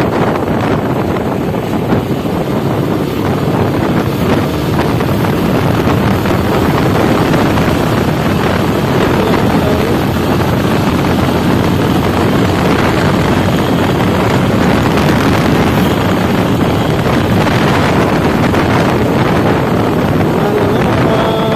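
Sport motorcycle riding at speed: a steady rush of wind on the microphone with the engine and tyre noise running underneath.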